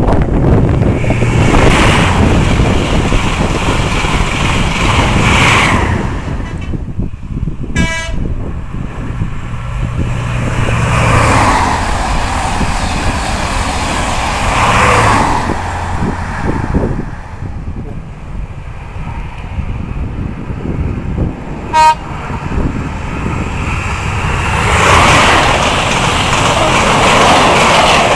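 An InterCity 125 High Speed Train with Class 43 diesel power cars approaches and passes at speed, with loud engine and rail noise that swells as each power car goes by. Two brief toots of the train's horn come about eight seconds in and again past the twenty-second mark.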